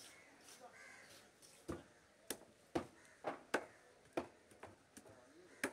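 Heavy cleaver chopping a Malabar trevally into steaks on a wooden chopping block. After a quiet second and a half comes a run of sharp chops, about two a second.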